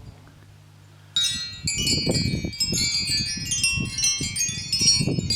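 Wind chimes ringing busily, many overlapping metal tones struck over and over, starting suddenly about a second in, with an uneven low rumble of wind underneath.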